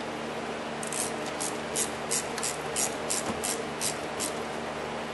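Ratchet wrench tightening a car battery's cable terminal clamp: about eleven short clicking strokes, roughly three a second, starting about a second in, over a steady background hum.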